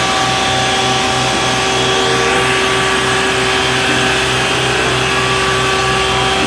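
Isuzu water tanker truck running its pump while the roof-mounted water cannon sprays a jet: a loud, steady rushing noise with a steady whine and a low beat about three times a second.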